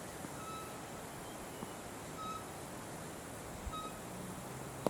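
A bird repeating a short, high, clear whistle about every one and a half seconds over steady open-air background noise, with one sharp knock near the end.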